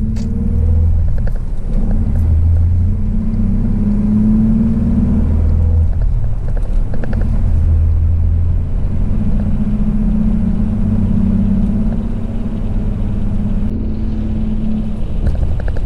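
A Mazda car's engine and road noise while driving: a steady low hum that swells and eases every few seconds.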